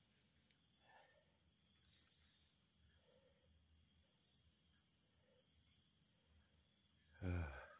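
Faint night chorus of crickets and other insects: a steady high buzzing with a thin higher chirp repeating a little more than once a second. A brief voice sound comes near the end.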